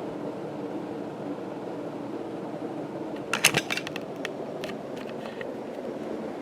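1983 Casablanca Four Seasons ceiling fan running with a steady low hum. A quick cluster of sharp clicks comes about three and a half seconds in, with a few more over the next second.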